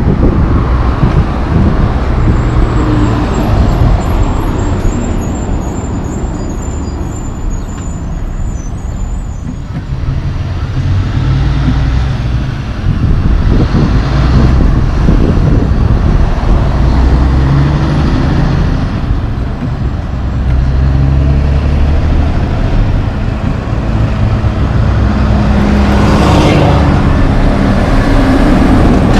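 Diesel engines of loaded logging trucks driving past, a steady low rumble that grows stronger about a third of the way in, mixed with passing road traffic.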